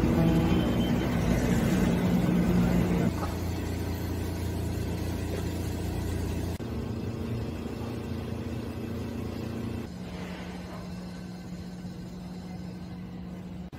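City street ambience: a steady hum of road traffic, changing abruptly about three, six and a half, and ten seconds in, and getting gradually quieter.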